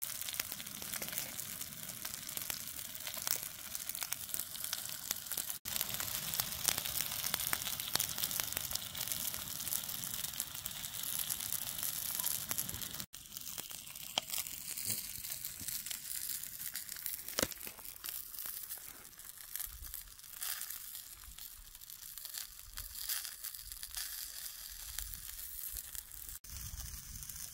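Whole trout frying in oil in a skillet, a steady sizzle that breaks off abruptly three times.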